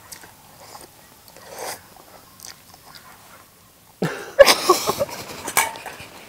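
A woman chewing a mouthful of noodles, faint and quiet. About four seconds in she breaks into a loud fit of coughing and sputtering.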